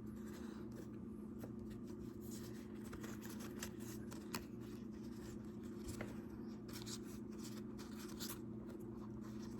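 Pokémon trading cards being handled and flipped through by hand, with soft, scattered rustles and clicks over a steady low hum.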